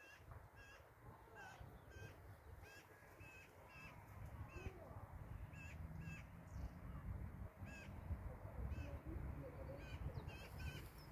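A bird giving short, repeated calls, about one or two a second, over a low rumble of wind on the microphone that grows louder partway through.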